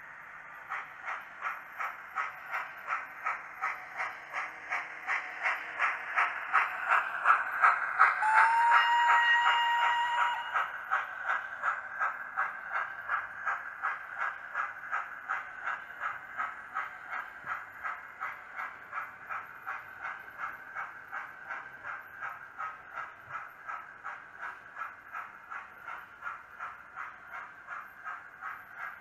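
Hornby Lord Nelson 00 gauge model steam locomotive's DCC sound decoder playing an even beat of exhaust chuffs, two to three a second, growing louder as it passes and then slowly fading away. One steam whistle blast, about two seconds long, sounds about eight seconds in.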